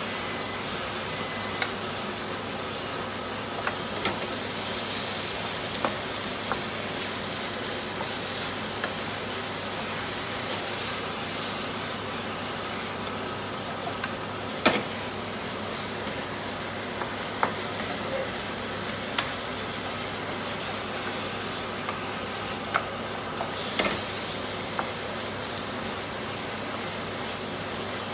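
Chicken wings sizzling steadily in a hot non-stick frying pan while a wooden spatula stirs them, with occasional sharp knocks of the spatula against the pan, one louder than the rest midway.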